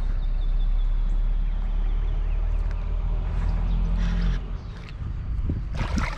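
A steady low rumble on the microphone, then near the end a sudden loud splash as a fish strikes a topwater rat lure at the surface.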